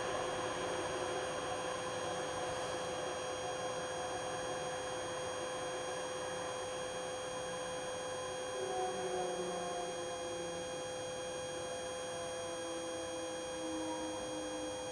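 Steady hum with an even hiss, several unchanging tones held throughout; faint low tones waver in and out during the second half.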